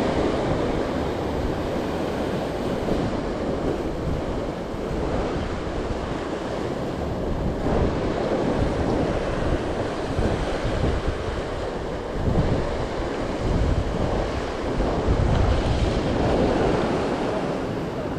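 Rough surf washing and breaking over shoreline lava rocks, swelling in surges every few seconds, with wind buffeting the microphone.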